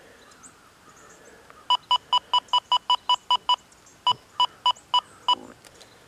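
XP Deus 2 metal detector control unit giving short keypress beeps, all at one pitch, as its button is pressed to step the discrimination value up: a quick run of about ten beeps at about five a second starting just under two seconds in, then five more a little slower.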